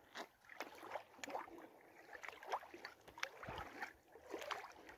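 Faint, irregular small splashes and lapping of shallow river water at a sandy shore, a scatter of soft little ticks.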